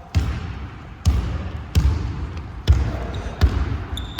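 Basketball being dribbled on a gym floor: about five bouncing thuds, a little under a second apart.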